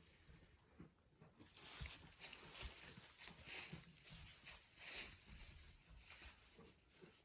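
Goats shuffling and rustling about in their pen, in irregular rustles with louder ones about three and a half and five seconds in.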